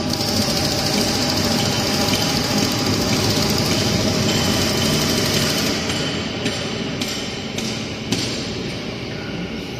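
A 350-ton double-cylinder hydraulic wheelset press running, with a steady machine hum and hiss. The hiss falls away about six seconds in, and then there are several sharp clicks.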